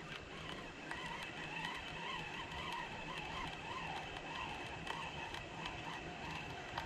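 Baitcasting reel being cranked steadily on a retrieve: a faint gear whir that wavers with each turn of the handle, with one small click near the end.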